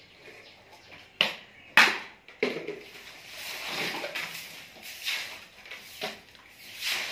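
A grass broom sweeping a concrete floor in repeated swishing strokes. Two sharp knocks a little over a second in are the loudest sounds.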